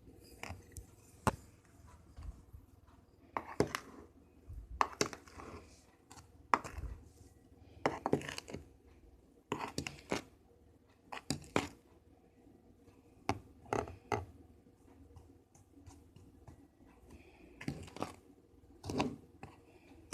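A big spoon stirring thick brownie batter in a baking container: irregular scrapes and knocks against the container, coming in uneven clusters with short pauses between.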